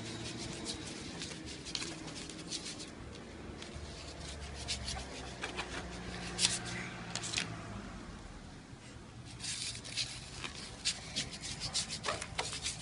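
A plastic spoon stirring glue slime on a plastic plate: rubbing and scraping with quick little clicks, busier near the end.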